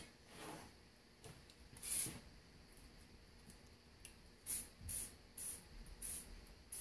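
An aerosol can of Fluid Film-type lanolin spray lubricant hissing in short spritzes onto a bare wheel hub. There is one spritz about two seconds in, then a quick run of about five more near the end.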